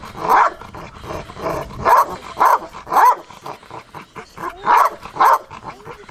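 Young Doberman barking repeatedly at a bite sack dragged in front of it, an eager bark for the bite in early protection training. The short, loud barks come a couple per second, with a short lull about four seconds in.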